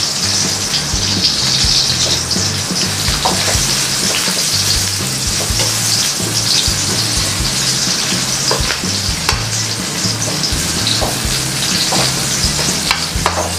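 Chopped garlic and julienned onion sizzling in hot oil in a metal wok, stirred with a spatula that scrapes and taps against the pan now and then as they are sautéed toward golden brown.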